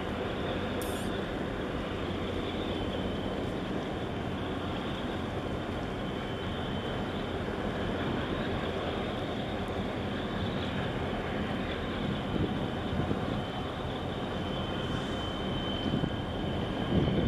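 Steady low engine drone with a haze of wind and water noise, and a few low thumps near the end.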